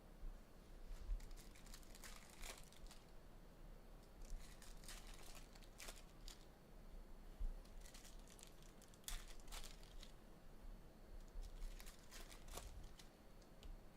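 Faint crinkling and tearing of trading-card pack wrappers being ripped open, in scattered short rustles.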